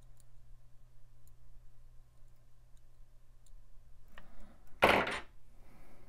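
Faint clicks of a thin wooden pick scraping along the gold contacts of a MacBook Pro RAM slot to clear corrosion, over a steady low hum. About five seconds in comes a short, loud rush of noise.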